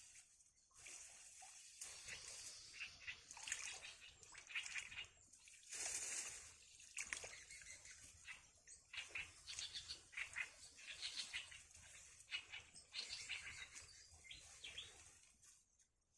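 Newly hatched nestlings cheeping in the nest: thin, high peeps repeated in quick irregular runs, with a brief rustle about six seconds in.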